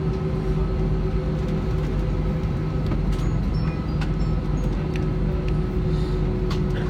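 Steady drone inside an Airbus A320's cabin with the engines at idle and the air conditioning running: a low hum with a steady higher tone over it, and a few light clicks.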